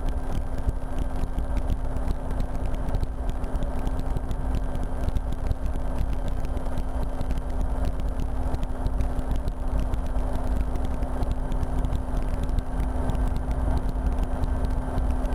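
RotorWay experimental helicopter in cruise flight, heard from the cockpit: a steady engine and rotor drone with a constant low hum.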